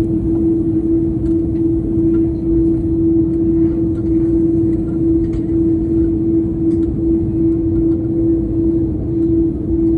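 Steady drone of an airliner in flight heard from inside the passenger cabin: a constant low rumble of engines and airflow with a steady hum tone.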